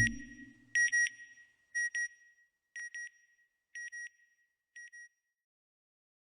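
Electronic double beep, two quick high pips repeated about once a second, each pair fainter until they fade out after about five seconds. It comes just as a low rumbling swell ends.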